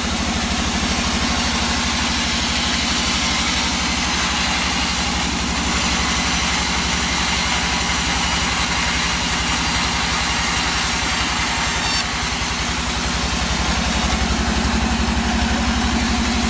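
Engine of a log-cutting saw running steadily at an even pace, with a high hiss over it that drops off abruptly about twelve seconds in.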